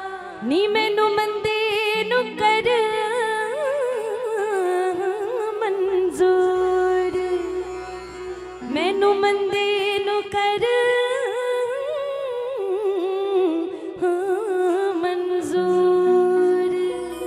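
A woman singing a wordless, heavily ornamented devotional melody in long phrases, her pitch wavering and sliding, over steady held notes from the accompanying instruments.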